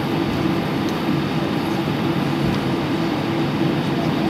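Cabin noise inside an Airbus A319 airliner taxiing: a steady engine drone with a constant low hum.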